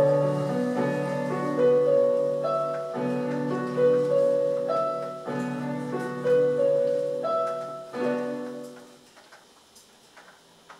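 Slow piano music: single notes stepping over held chords, fading out about nine seconds in. Faint light knocks follow.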